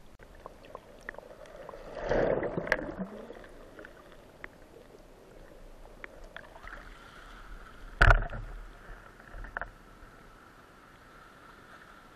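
Water sloshing and rushing around an underwater camera mounted on a speargun as it moves through shallow water and comes up through the surface. There is a surge of rushing water about two seconds in, scattered small clicks, and a sharp knock about eight seconds in.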